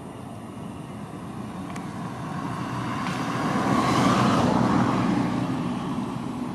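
A car driving past, growing louder to a peak about four seconds in, then fading away.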